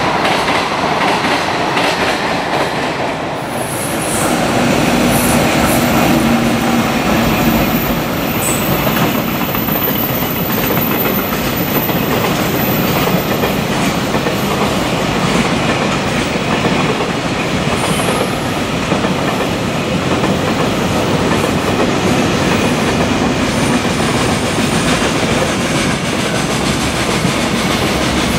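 Container freight train rolling past at speed: a steady, loud rush of wheels on rail, dipping briefly about three seconds in, with thin high-pitched wheel squeals through the middle stretch.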